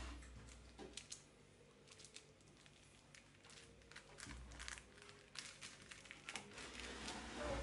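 Thin clear plastic film crinkling and crackling in irregular faint bursts as hands peel and gather it from under a sheet of rolled-out dough.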